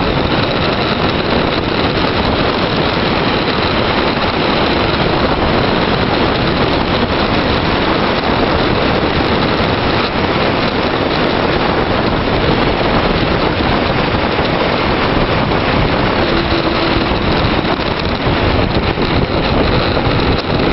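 Steady, loud wind rushing over the microphone of a camera moving at speed down a mountain road.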